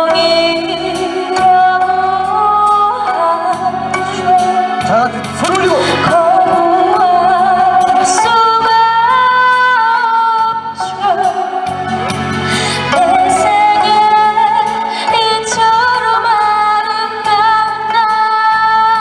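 A woman singing a slow Korean ballad, holding long notes with vibrato, over an accompaniment of bass and light drums.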